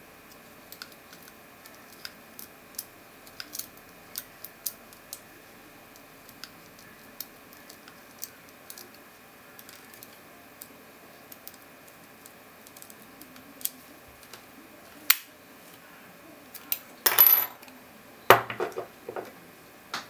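Lock pick ticking and scraping on the pins of a cross-key padlock's cylinder, in light irregular clicks. About fifteen seconds in comes one louder click, then a burst of metal rattling. Near the end the small metal padlock lands on a wooden table and clatters briefly.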